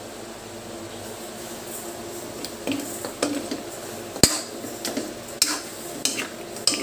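Metal spoon clinking and scraping against a metal wok while pork is stirred. It is quieter at first, then comes a string of sharp knocks, the loudest about four seconds in.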